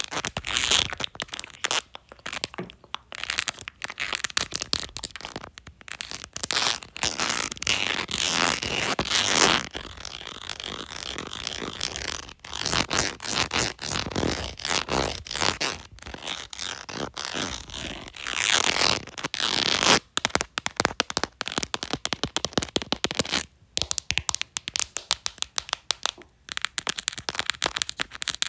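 Fingers tapping and scratching a textured phone case: rapid, uneven clicking taps mixed with stretches of scratchy rubbing.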